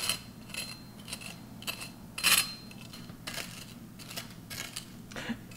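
Kitchen knife cutting through a toasted sandwich on a dark metal baking pan: a run of short scrapes and clicks as the blade saws and knocks against the pan, the loudest about two seconds in.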